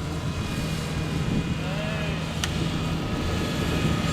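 Kubota DC70 combine harvester's diesel engine running steadily, with a short rising-and-falling call from a voice about two seconds in.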